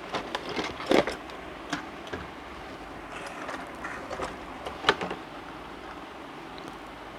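Packaging being opened and handled by hand: scattered knocks and clicks with light rustling, the sharpest knocks about a second in and again about five seconds in.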